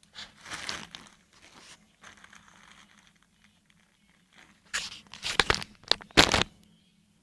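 Handling noises: scraping and rustling in the first two seconds, then a cluster of sharp clicks and knocks about five to six and a half seconds in.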